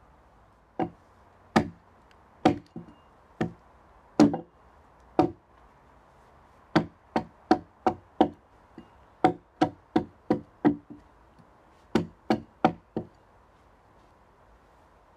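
Axe chopping into a log: sharp separate blows, a few spaced about a second apart, then quicker runs of three to five strikes, stopping about two seconds before the end.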